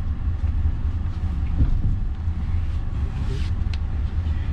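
Passenger train running, a steady low rumble with a couple of faint clicks near the end.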